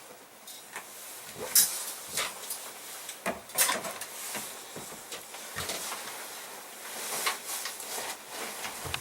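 Camping gear being handled and repacked: irregular light clicks and clacks of hard items knocking together, with rustling of the pack and bags.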